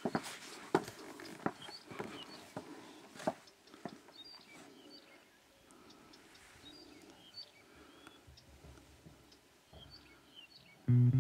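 Footsteps, about one step every three-quarters of a second, for the first three seconds or so, then faint high bird chirps over quiet outdoor background. Music comes in near the end.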